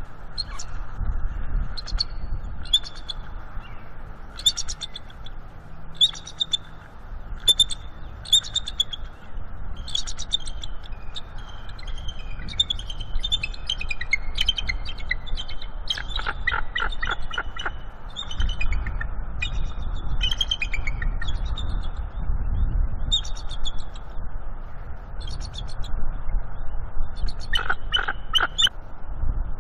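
Bald eagles calling: repeated runs of high, chittering, piping notes, with louder runs of calls about halfway through and near the end. These are the pair's greeting calls as the mate arrives at the nest.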